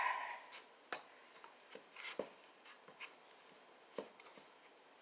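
Faint, scattered clicks, knocks and scrapes of a utensil digging at hard-frozen ice cream in its tub, the ice cream too hard to scoop easily. The tail of a loud huff of breath fades out at the very start.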